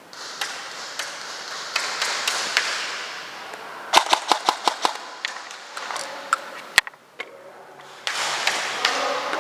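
Airsoft AR-15 rifle firing, with single sharp shots and a quick string of about seven shots in one second about four seconds in, over a steady hiss.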